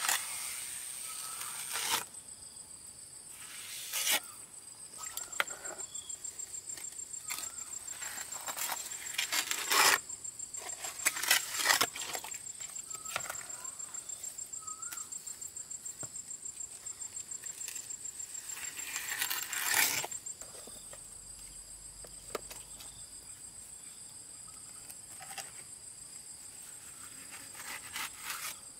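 A plastic plastering float scraping over wet cement mortar on a brick tank wall, in several separate strokes, over a steady high-pitched insect drone.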